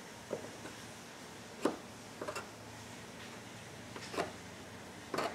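A razor blade scraping excess plastic bonder off a cracked plastic fender, in about six short, separate strokes; the loudest comes a little under two seconds in, with a quick group of strokes near the end.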